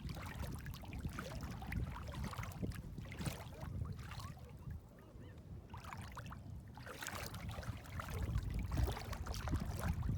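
Water lapping and trickling, over a steady low rumble, with many small scattered clicks.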